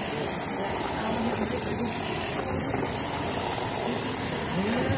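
A steady hiss of background noise with faint voices behind it; no distinct knocks from the toys in the arena stand out.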